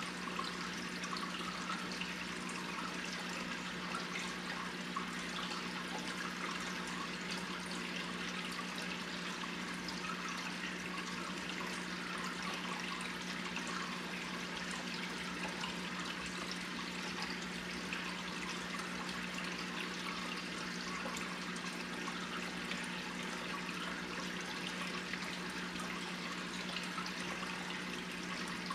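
Aquarium filter running: a steady trickle and bubbling of circulating water over a constant low hum.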